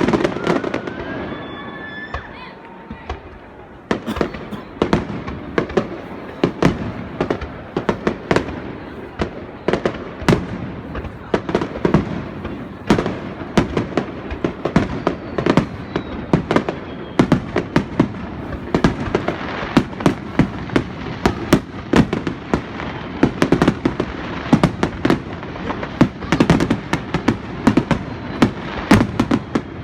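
Fireworks display: a loud burst at the start with whistling shells gliding up and down. From about four seconds in, a dense, continuous barrage of rapid bangs and crackles follows.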